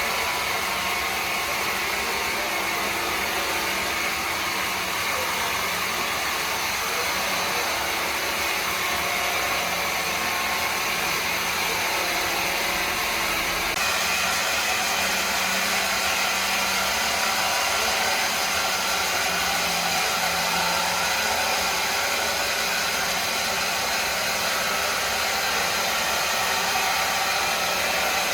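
Woodworking machinery running with a steady whirring hiss, its sound changing abruptly about halfway through.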